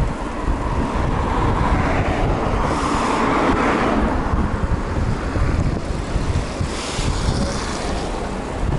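Wind buffeting the microphone of a camera riding on a moving bicycle, with a rushing noise that swells from about two to four seconds in.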